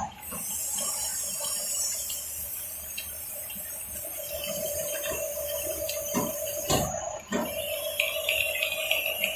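Radio-controlled bulldozer working: a steady hiss of its running drive, with a steady whine joining about four seconds in, a few light knocks, and a louder thump about seven seconds in.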